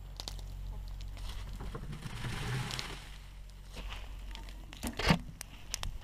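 Plastic tarp crinkling and rustling as it is handled and pulled, with scattered clicks over a steady low hum and a sharp knock about five seconds in.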